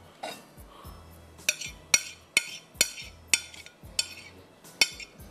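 A metal spoon scraping and tapping a white ceramic plate held over a glass bowl. Starting about a second and a half in, it makes a run of sharp, ringing clinks, about two a second.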